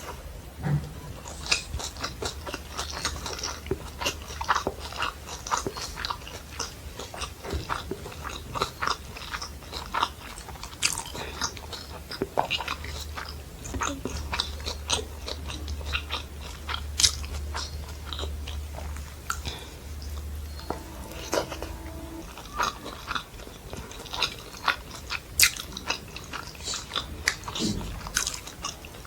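Close-miked eating sounds of fried rice and Manchurian: wet chewing, lip smacks and frequent small clicks and crunches, irregular and continuous. A low steady hum sits underneath until about three-quarters of the way through.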